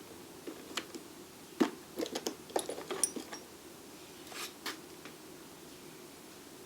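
Small metal tools and parts clicking and clinking as they are handled and set down. A few single clicks come first, then a quick cluster of clinks about two to three seconds in, and two more near the middle.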